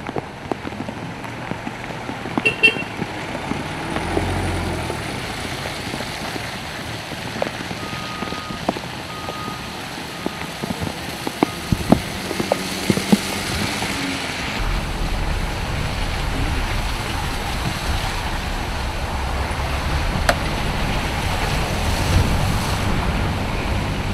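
Vehicles moving slowly on a mud-covered road: engines running over a steady outdoor noise, with scattered knocks and a couple of short horn toots about eight seconds in. About halfway through, a louder low rumble sets in and continues.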